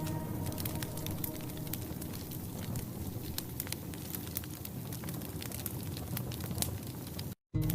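Wood fire in a fireplace crackling, with frequent sharp pops over a steady hiss. It cuts out to silence for a moment near the end.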